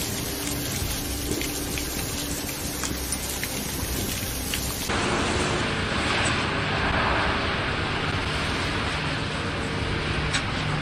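A hailstorm: hail and rain pattering on paving, with scattered sharp ticks of stones striking. About five seconds in, the sound cuts to a louder, steady rush of heavy precipitation.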